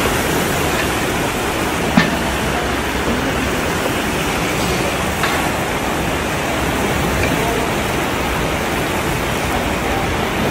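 Steady hiss of food sizzling and steaming in a giant cooking pot heaped with carrots and chickpeas, with one sharp click about two seconds in.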